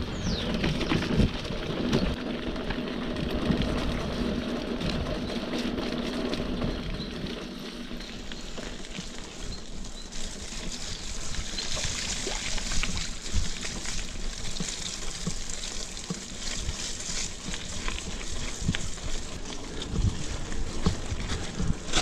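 Mountain bike tyres rolling through wet mud and puddles on a dirt track, with scattered clicks and rattles from the bike. A steady low hum runs through the first several seconds.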